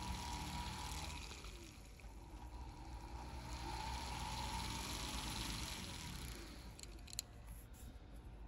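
Small handheld rotary tool running, its bit carving into a stick of hot glue: a faint whine with a hiss of cutting that swells and fades as the bit is worked in. There are a few light ticks about seven seconds in.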